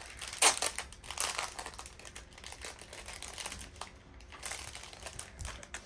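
Packaging crinkling and rustling as it is handled and opened, with irregular sharp crackles, the loudest about half a second in.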